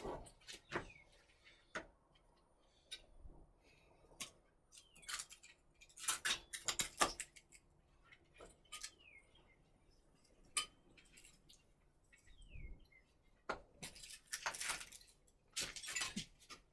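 Scattered clicks, knocks and rustling from hands working with gear, with a few short high chirps that fall in pitch every few seconds.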